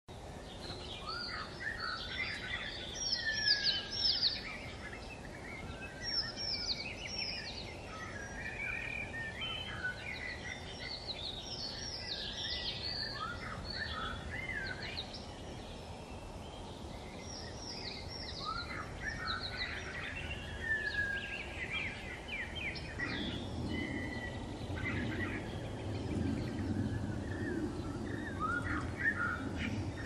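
Several small songbirds singing and calling over one another, a dense run of quick chirps and short falling whistles. A low rumble rises underneath in the last several seconds.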